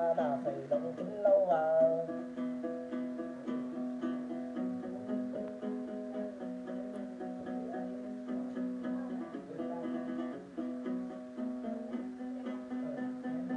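Đàn tính, the long-necked gourd lute of Then ritual music, plucked in a steady repeating figure over a held drone note. A man's voice gives a short sung phrase in the first two seconds.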